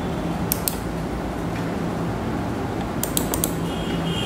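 Computer mouse clicks: two about half a second in and a quick run of about four around three seconds in, over steady background noise with a faint low hum.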